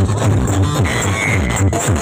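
Loud electronic dance music played through a mobile sound system's stacks of speaker cabinets. It has heavy bass and repeated falling bass sweeps.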